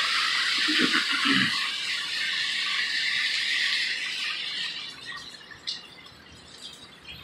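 Heavy rain pouring down, a steady hiss that drops away sharply about five seconds in.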